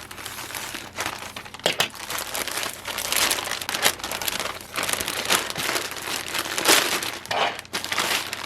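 Packaging crinkling and rustling as a garment is unwrapped by hand, in irregular crackly handfuls.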